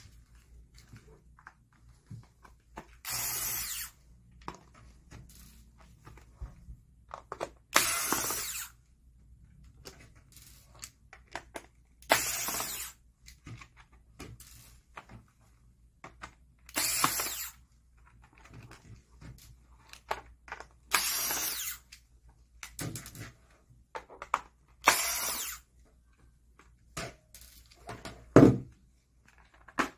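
A small power screwdriver running in six short bursts, about four seconds apart, backing screws out of a plastic LED face mask. Light clicks and handling noise come between the bursts, and there is a single sharp knock near the end.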